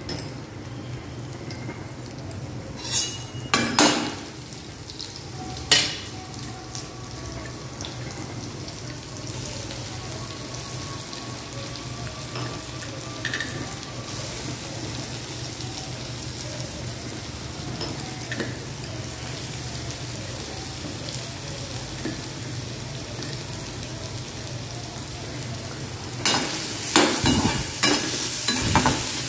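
Chopped onions and green chillies sizzling in hot oil in a kadai, the sizzle growing louder partway through. A few sharp knocks come a few seconds in, and near the end a spatula scrapes and stirs against the pan.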